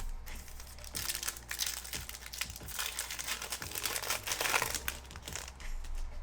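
Foil wrapper of a Panini Prizm football card pack crinkling as it is torn open, a dense crackle that is loudest about four and a half seconds in.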